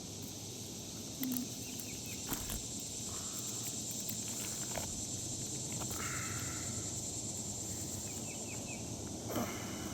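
Steady high-pitched drone of insects, with a few faint chirps and occasional light taps and scrapes, the loudest about a second in, two seconds in and near the end.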